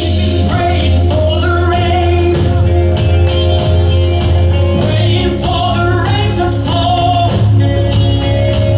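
Upbeat gospel worship song: a singer over a band with a steady bass line and drums.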